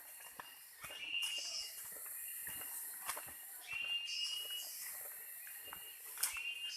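Forest insects buzzing in high, swelling waves, with several short whistling calls and scattered light clicks.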